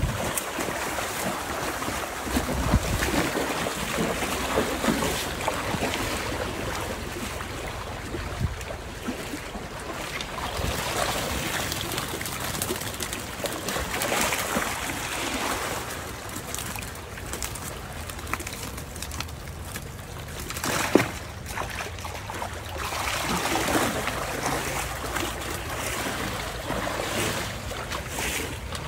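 Splashing and rushing water as a person wades through a shallow stream in rubber boots, the splashes swelling and easing as he moves. One sharp knock stands out about two-thirds of the way through.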